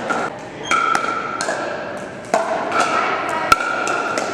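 Pickleball paddles hitting a plastic pickleball: sharp pops at irregular intervals, several within a few seconds.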